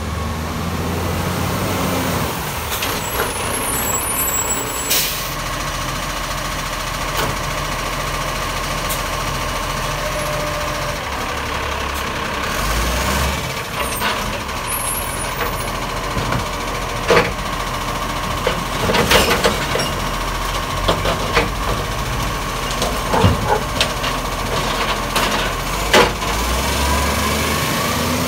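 Side-loading garbage truck running close by: a steady diesel engine with a whine over it, sharp clanks and knocks from the lifting arm and bins at intervals, and bursts of air-brake hiss, one about five seconds in.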